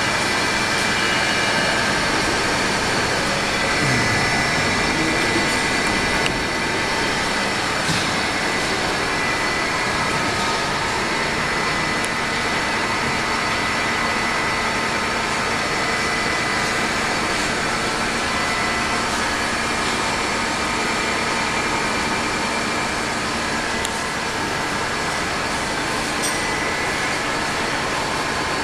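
Steady drone of industrial machinery on an LPG cylinder welding line: an even noise with several constant high-pitched hums and no change in level.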